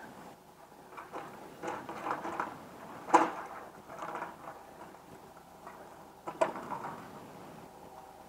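Logs being unloaded from a logging truck: scattered knocks and thuds of timber over a steady machine hum, the loudest knocks about three seconds in and about six and a half seconds in.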